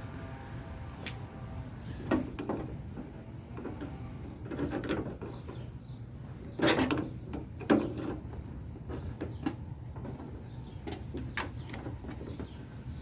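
Irregular clicks, knocks and scrapes of a Honda del Sol exterior door handle being worked and twisted loose from inside the door, the loudest knocks a little past halfway, over a steady low hum.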